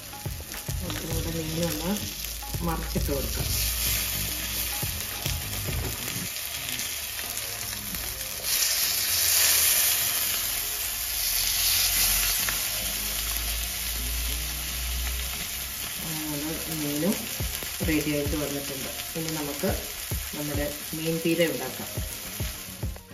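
Masala-coated manthal (sole) fish frying in hot oil in a nonstick pan, a steady sizzle that grows louder for a few seconds from about eight seconds in. A wooden spatula scrapes and taps in the pan as the fish is moved and turned.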